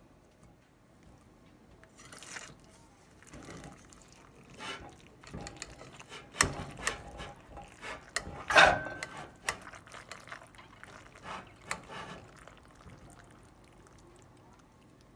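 Cheesy pasta bake in meat sauce being scooped out of a baking dish onto a plate: a run of irregular clinks and scrapes of the serving utensil against the dish and plate, with soft sticky scooping sounds, the loudest clink a little past halfway.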